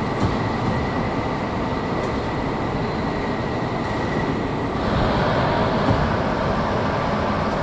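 CNC sheet-metal folding machine running: a steady mechanical drone with a thin high whine. About five seconds in the whine stops and the drone grows a little louder.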